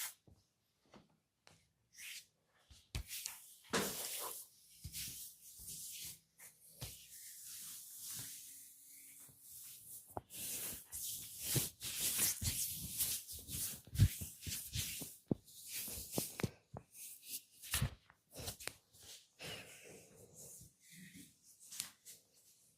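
Hands massaging oiled skin and hair: irregular rubbing rustles with short slaps and taps, busiest from about ten seconds in.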